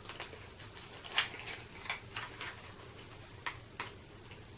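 Light, scattered clicks and taps of a small plastic liquid-lipstick tube and its packaging being handled, the sharpest about a second in, with a few softer ones later.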